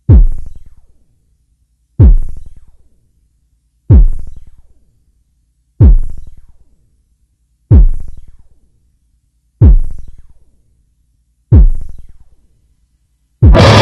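Electronic music: a deep drum-machine kick with a falling boom, struck alone about every two seconds, seven times, each dying away over about a second with a faint high tick. Just before the end a loud, dense wall of industrial noise cuts in abruptly.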